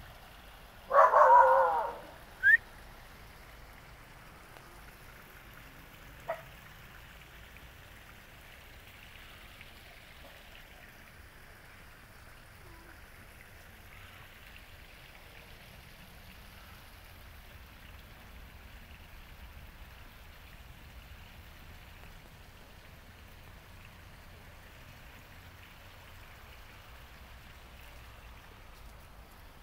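Small garden-pond waterfall trickling steadily into the pond. Near the start comes a loud, harsh sound lasting about a second, then a brief rising chirp.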